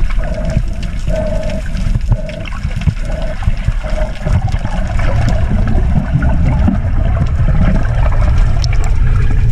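Underwater sound picked up by a camera submerged in the sea: a low, rumbling wash of water with gurgling and scattered crackling clicks. A pulsing hum comes about once a second through the first few seconds.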